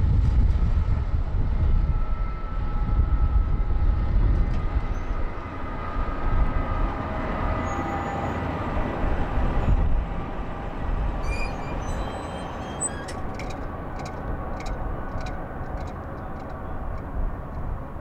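Freight train rumbling by, the low roar of its wheels and cars rolling on the rails. About ten seconds in it drops to a quieter steady rumble of the diesel locomotive approaching, with a few faint high ticks.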